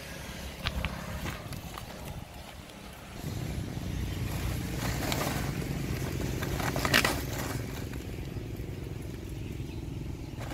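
Woven plastic sack rustling and crinkling as it is handled and filled, loudest in a sharp burst about two thirds of the way through. A steady low motor hum starts about three seconds in and carries on underneath.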